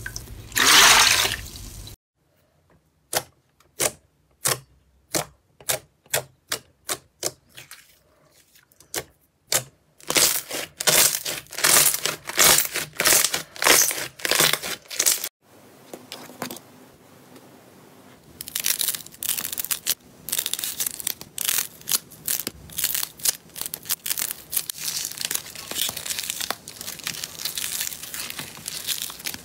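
Hand-played slime and soaked blocks: a wet squelch of water in the first two seconds, then single sharp pops that come faster and faster, then long runs of dense crackling and popping as slime is pressed and stretched, with a quieter stretch in the middle.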